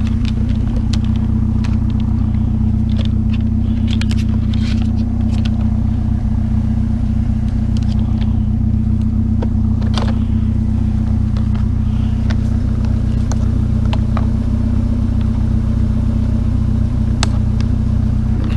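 Truck engine idling steadily, with a few faint clicks and knocks now and then.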